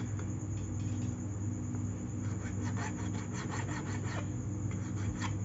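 A thin hand file rubbing back and forth in quick, repeated strokes along the side of a handmade gold ring held against a wooden bench pin.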